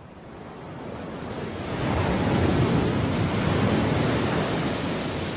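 Ocean surf: a rushing wash of waves that swells up over the first two seconds, holds, then slowly eases off.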